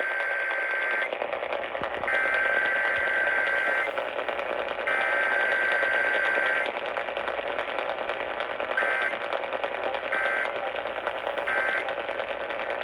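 Emergency Alert System Required Weekly Test data bursts received over the radio: the tail of one SAME header burst and two more full ones, each a buzzy two-tone warble about two seconds long with a second's gap between, then three short end-of-message bursts about a second and a half apart. A steady hiss runs underneath.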